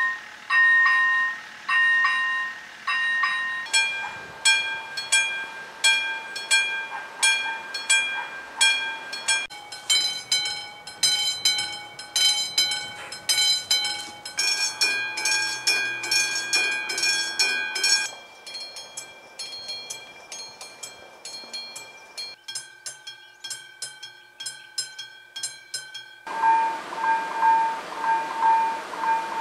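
Railway level crossing warning bells at several crossings in turn, each ringing a repeated electronic ding at about one to two strokes a second, the pitch and rate changing with each crossing. In places a passing train's running noise lies beneath the bells.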